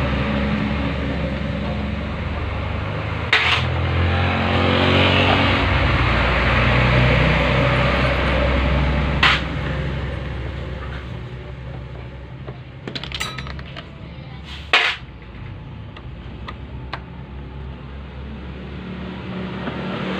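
A motor vehicle engine running steadily in the background; its pitch shifts about four seconds in and its sound fades after about nine seconds. Over it come a few sharp clicks and small ticks from a screwdriver, screws and plastic cover panels being handled.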